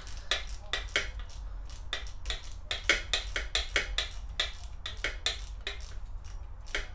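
Socket ratchet clicking in quick runs, several clicks a second, as its handle is swung back and forth to back out a loosened 8 mm valve cover bolt.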